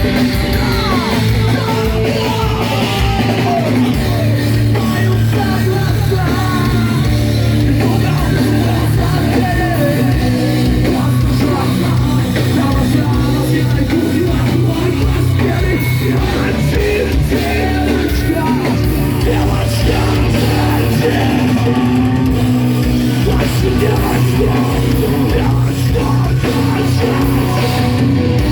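A rock band playing live, loud and heavy: distorted guitars, bass and drums in a dense passage between sung lines, with some shouted or sung vocals mixed in.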